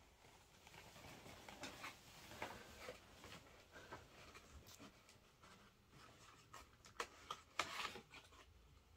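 Faint rustling and scraping of a cardboard gift box being opened by hand, its flaps and inner insert pulled apart, with a few sharper cardboard clicks near the end.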